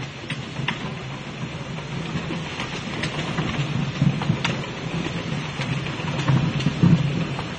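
Automatic labeling machine for 5-gallon plastic pails running: a steady low mechanical hum from the conveyor and drive, with irregular sharp clicks and knocks as pails pass through the label stations.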